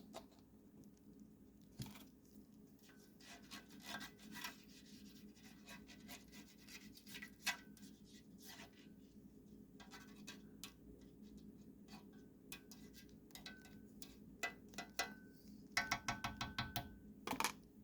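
Faint kitchen handling noises: scattered light scrapes, taps and clicks of utensils and a metal baking pan while melted butter is spread around the pan, over a low steady hum. About sixteen seconds in comes a quick rattling run of clicks.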